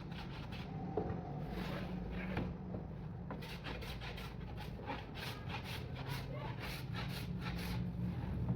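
Quick, evenly repeated rubbing strokes on wood, about three or four a second, over a steady low hum.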